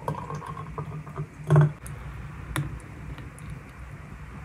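Thick milkshake pouring from a glass blender jug into a glass, with soft wet plops and patter, one louder plop about a second and a half in and a sharp click about a second later.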